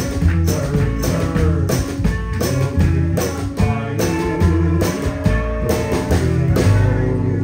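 Live band playing with upright bass, electric guitar and drum kit, about two drum hits a second over a walking low bass line. Near the end the drum hits stop and a low note rings on as the tune closes.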